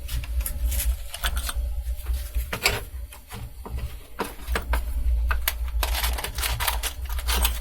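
Small metal nuts and hardware clicking and clattering as they are rummaged through by hand, irregular light taps over a steady low hum.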